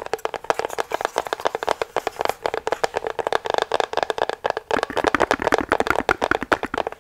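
Rapid tapping with fingers and nails on a hollow cut-out Christmas house decoration, many small clicks a second that ring with the object's hollow body.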